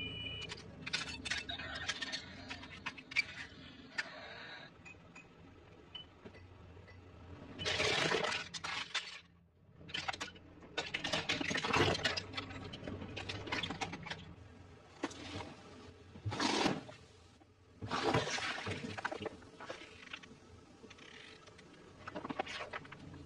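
A car tyre slowly rolling over and crushing small objects such as a toy truck and plastic items, with several separate bursts of cracking, crunching and breaking.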